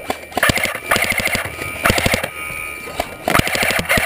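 Airsoft guns firing several short full-auto bursts of rapid clicks.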